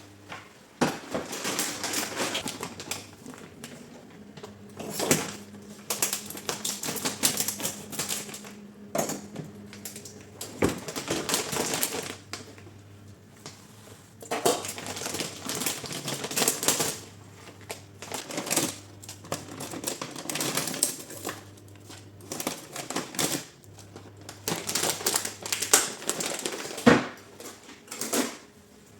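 Bursts of rapid tapping and clatter from kitchen utensils striking hard surfaces, with short pauses between bursts.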